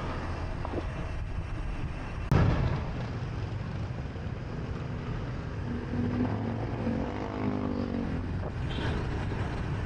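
Wind and road rush on a bicycle rider's action camera while coasting a long downhill, with a single sharp knock about two seconds in. A motor vehicle's engine hum rises and passes for a few seconds past the middle.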